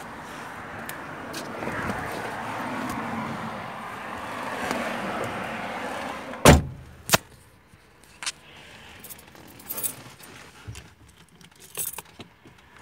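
Steady outdoor noise, then a car door shuts with a loud thump about six and a half seconds in, followed by a smaller knock. Inside the closed car it is much quieter, with keys jingling and small scattered clicks.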